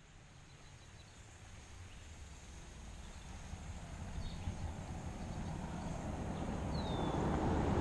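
Outdoor river ambience fading in, mostly wind rumbling on the microphone, with a faint steady high hum above it. A bird gives one short falling call about seven seconds in.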